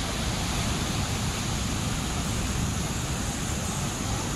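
Steady beach ambience: an even wash of surf noise with a low rumble underneath and no distinct events.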